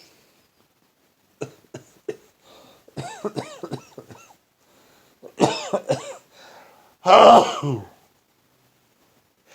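A man's sneezing fit: a few quick sniffs, then a run of loud explosive sneezes, the last and loudest about seven seconds in.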